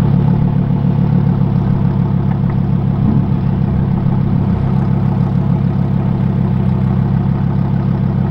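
Lamborghini Huracán STO's naturally aspirated V10 idling steadily close by.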